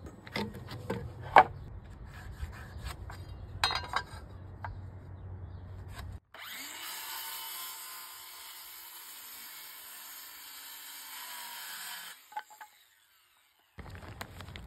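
Scattered knocks and taps as plywood is handled on concrete, then a Ryobi circular saw spins up and cuts through a plywood sheet for about six seconds, cutting off suddenly.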